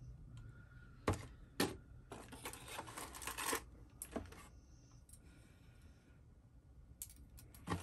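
Light clicks and rustling of small plastic cooler parts and a cardboard accessory box being handled. There are a few sharp clicks, a busier stretch of clicking and rustling a couple of seconds in, and a few more clicks near the end.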